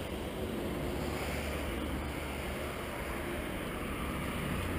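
Road traffic on a busy road: a steady low rumble of passing cars' engines and tyres.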